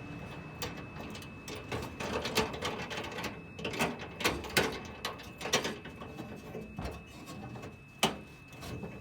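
Irregular metallic clicks and knocks of hand tools working on a truck toolbox's lock mechanism, with one sharp knock near the end.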